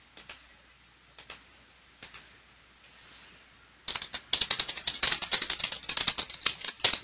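A few separate mouse clicks about a second apart, then rapid computer-keyboard typing from about four seconds in.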